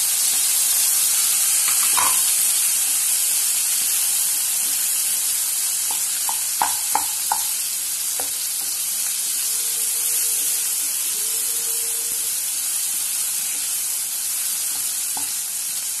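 Oil sizzling steadily in a pan as chopped tomatoes and onions are sautéed and stirred with a wooden spatula. About six to seven seconds in there is a quick run of sharp knocks from the spatula against the pan.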